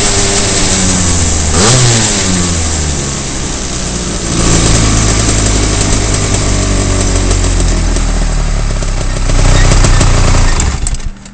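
Superkart engine running hard on track, its note falling and climbing again about two seconds in and once more around four seconds, over a steady rush of wind and tyre noise. The sound cuts away sharply just before the end.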